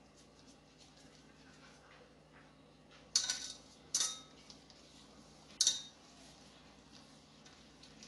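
Stainless steel saucepan clinking three times in quick succession, each a sharp metallic knock with a short ring, as a gloved hand mixes a spice paste in it; faint rubbing and small ticks of the mixing in between.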